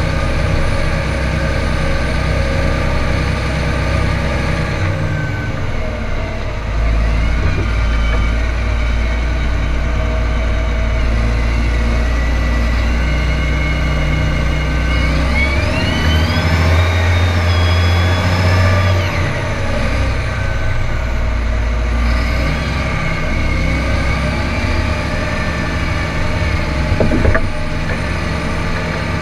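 John Deere tractor's diesel engine running steadily while driving through snow. About halfway through the revs climb with a rising whine, hold for a few seconds, then drop back. A single sharp knock comes near the end.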